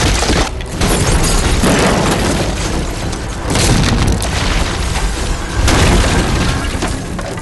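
Movie sound effects of a room being blasted apart: a string of heavy booms and crashing debris, loudest in surges about a second in, midway and near the sixth second.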